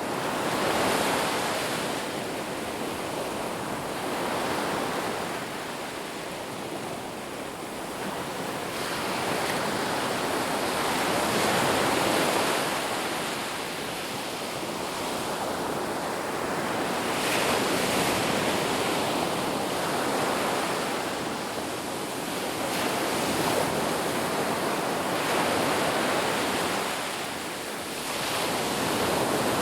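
Sea waves surging and breaking on the shore, a steady wash of surf that swells and eases every few seconds.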